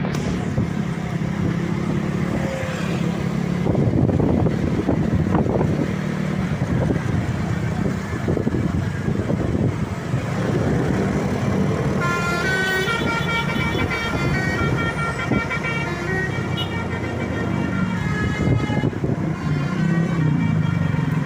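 Bus engine running with road noise. About halfway through, a Basuri telolet horn, a multi-trumpet air horn, plays a tune of high tones that step from note to note over the engine until near the end.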